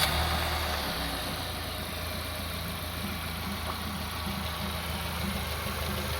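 Nissan PC24 Serena engine idling steadily, heard in the engine bay, carrying the abnormal noise that the owner is recording from it. The sound is a little louder in the first second, then settles to an even hum.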